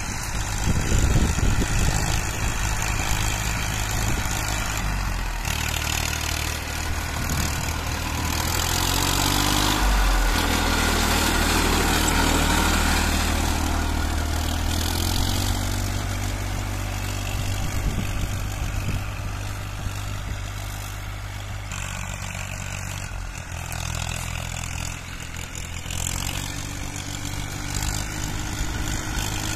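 Massey Ferguson tractor's diesel engine running steadily as it pulls a spring-tine cultivator through dry soil. It grows louder as the tractor comes close, about a third of the way in, with a brief shift in engine pitch, then fades as it drives away.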